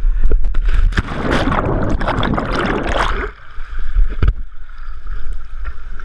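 River water rushing and splashing around an inflatable whitewater raft, heard close on the camera's microphone. A loud surge of spray starts about a second in and lasts about two seconds, then drops away, over a steady low rumble.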